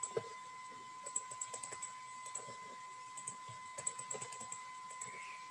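Computer keyboard being typed on in short bursts of quick key clicks, as a command is entered, with a faint steady electrical tone underneath.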